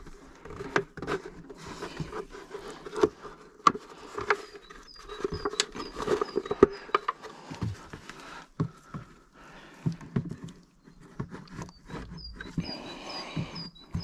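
Irregular clicks, knocks and scraping of hands-on work, with a small bird chirping in short repeated notes in several runs.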